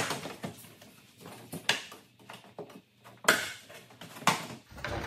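Plastic push clips of a Honda Ridgeline's front engine-bay shield popping loose as the shield is lifted straight up: a series of sharp plastic snaps every second or two, with the rustle and knock of the plastic panel between them.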